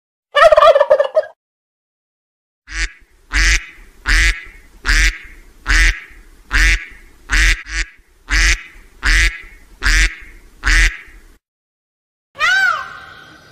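A brief turkey gobble at the start, then a steady series of about eleven loud, harsh waterfowl calls, one roughly every three-quarters of a second. Near the end a cat begins to meow.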